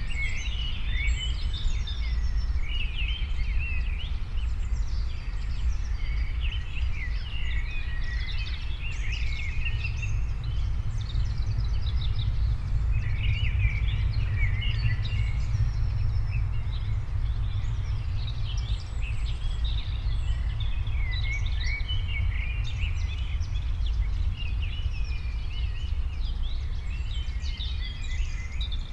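Many small birds chirping and singing over one another without pause, over a steady low rumble.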